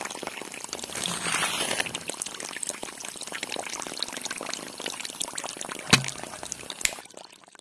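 A thin stream of water pouring and splashing into a shallow muddy channel from the small pipe spout of a miniature model water pump. A single sharp tap about six seconds in, and the trickle fades out near the end.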